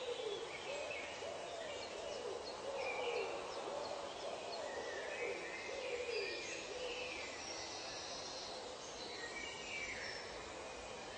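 Forest ambience of wild animal calls: repeated low calls that bend and fall in pitch, with higher bird calls above them and a steady hiss. The low calls die away about seven seconds in.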